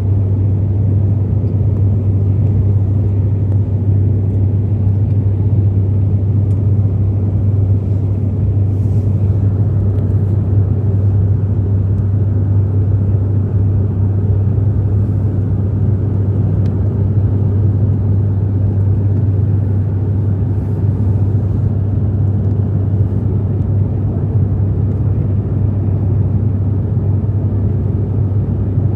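Steady engine and propeller drone heard inside a turboprop airliner's cabin in flight, a constant low hum over an even rumble.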